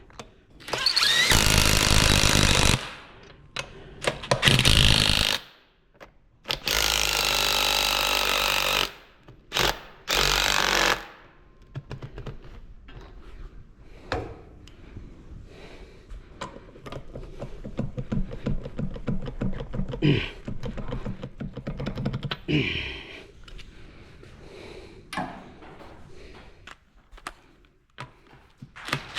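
A power tool running in four loud bursts of one to two seconds each, followed by quieter clicking and clattering of hand tools, with a few sharp knocks.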